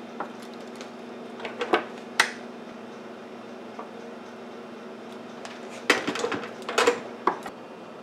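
Light clicks and clatter of a soldering iron and a small headphone jack being handled on a workbench. The sounds come in two groups, a few about two seconds in and a denser run between about six and seven and a half seconds, over a steady low hum.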